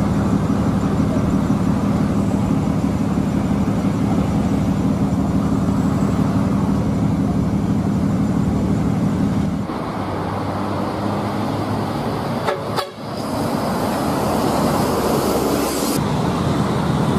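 Bus horns sounding: a long, steady horn blast for about the first ten seconds, then, after a cut, more horn and traffic noise.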